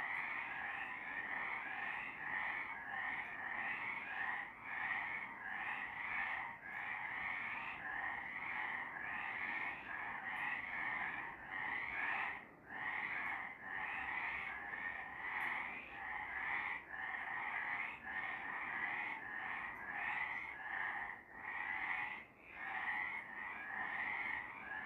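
A chorus of several frogs calling at night, a dense and continuous overlapping stream of rapid calls with brief dips now and then.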